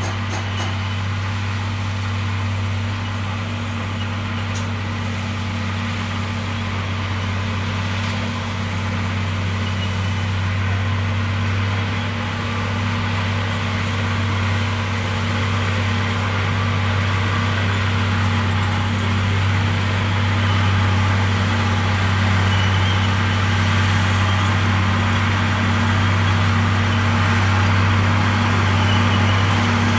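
Komatsu D58E bulldozer's diesel engine running steadily with a low drone, growing gradually louder toward the end.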